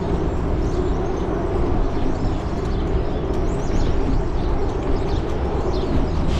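Steady wind rumble and rolling noise on the microphone of a camera riding on a bicycle. A few faint bird chirps come in from about halfway through.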